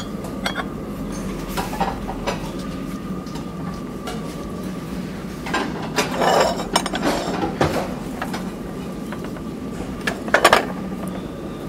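Porcelain plates and crockery clinking as they are handled and set down: a few light clinks, a cluster of them around the middle and another near the end, over a steady background hum.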